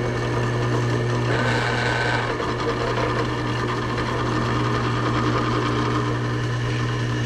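Benchtop drill press motor running with a steady hum as a twist bit drills a pilot hole through steel plate. A brief higher whine comes in about a second and a half in.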